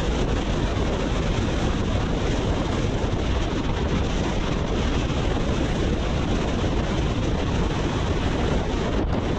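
Steady wind rush over the microphone on a BMW R nineT motorcycle riding at freeway speed, with the bike's engine and road noise blended underneath.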